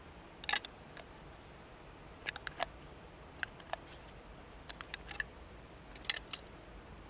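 Irregular sharp clicks and small knocks, some in quick clusters of two or three, over a faint steady hiss.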